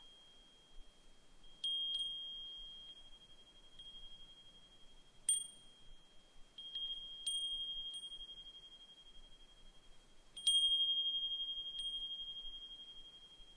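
Brass suzumushi furin (Japanese wind chime) ringing: a single high, clear tone struck at irregular intervals, about half a dozen times, each strike ringing on and slowly fading. The loudest strike comes about ten and a half seconds in.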